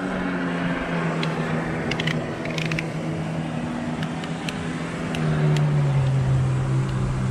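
A motor engine running with a steady hum that slowly drops in pitch and grows louder about five seconds in, with a few light clicks over it.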